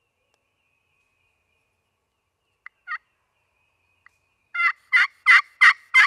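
Hand-held turkey call being run: two short soft notes a little under three seconds in, then from about four and a half seconds a loud, close series of turkey yelps at about three a second.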